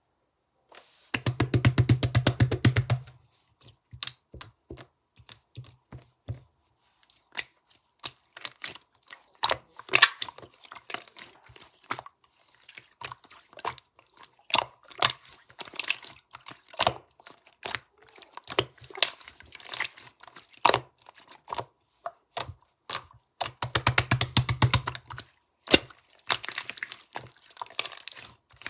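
Slime being squeezed and kneaded by hand, giving quick irregular clicks and pops, with two denser runs of crackling, about a second in and again near the end.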